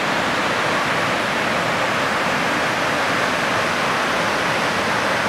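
Kamieńczyk waterfall, a tall mountain waterfall pouring over rock: a steady, loud rush of falling water.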